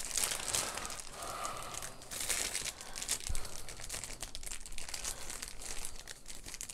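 Plastic packaging crinkling and rustling in irregular bursts as it is handled by hand.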